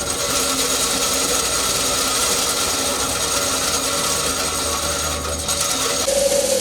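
Peanut-cracking machine running, with a steady mechanical rasping rattle. About six seconds in, a strong steady hum comes in.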